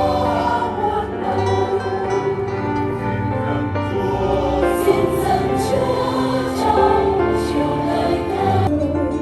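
Slow, sustained choral music, with a choir singing held chords.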